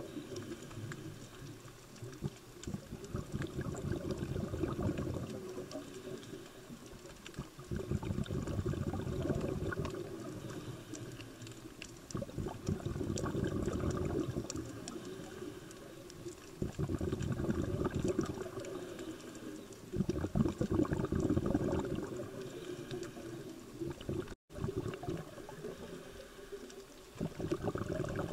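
Scuba regulator exhaust: a diver's exhaled breath bubbling out in gurgling bursts about every four to five seconds, heard underwater.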